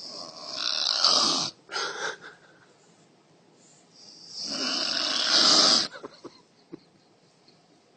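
A woman snoring loudly: two long snores about four seconds apart, each growing louder and then cutting off suddenly, with a shorter snort just after the first.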